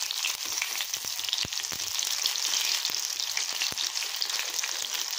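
Batter-coated paneer pakoras deep-frying in hot mustard oil in an iron kadhai: a steady sizzle and crackle of bubbling oil, with a few sharp clicks.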